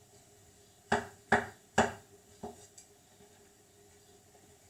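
Kitchen knife chopping mushrooms on a chopping board: a handful of sharp chops in quick succession starting about a second in, the first three loudest.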